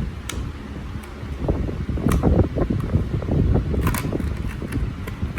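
Irregular low rumbling noise, like handling or wind on the microphone, with several sharp clicks and taps of a laptop's plastic parts being worked loose during disassembly. The strongest is a double click about four seconds in.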